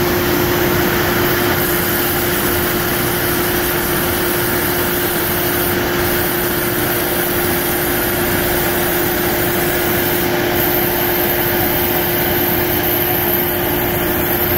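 CNC router spindle running and cutting black plastic sheet with its dust extraction on: a steady whine with a strong constant tone over a rushing noise.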